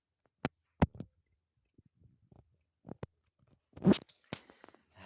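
A few separate sharp knocks and clicks of objects being handled, the loudest nearly four seconds in, followed by a brief rustle near the end.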